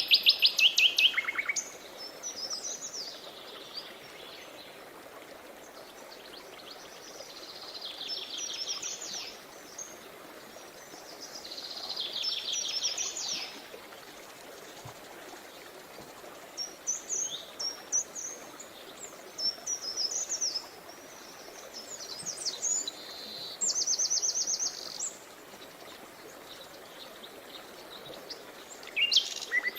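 Songbirds singing in short, rapid trilled phrases that come every few seconds, some louder than others, over a steady rush of flowing river water.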